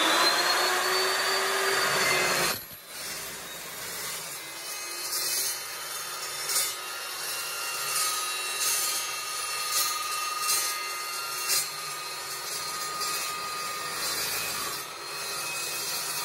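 Evolution 14-inch carbide-tipped (TCT) metal-cutting chop saw: its motor whines up to speed and runs loud, then about two and a half seconds in it drops to a quieter steady hum as the blade cuts slowly through square metal tubing, with scraping and a few sharp ticks.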